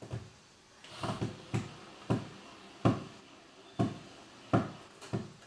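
Repeated sharp knocks against the wall, about nine blows at uneven intervals, as the keypad mounting plate and its wall anchors are being fixed to the wall.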